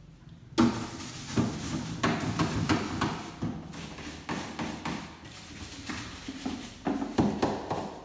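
Repeated knocking and clattering of hard objects, several sharp knocks a second, starting abruptly about half a second in: things being handled and set down while a refrigerator is cleaned out.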